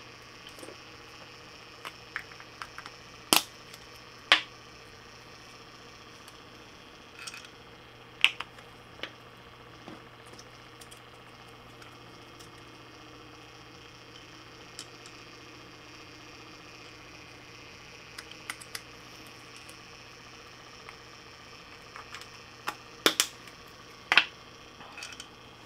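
Sharp clicks and taps of small plastic glitter jars and a steel mixing cup being handled, a few near the start and a cluster near the end, over a steady low hum.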